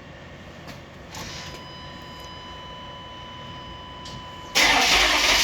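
Cold start of a 1995 Chevy 3500's 6.5-litre diesel V8. There are a few clicks and a steady high tone, then about four and a half seconds in the engine cranks and catches, and it runs loudly.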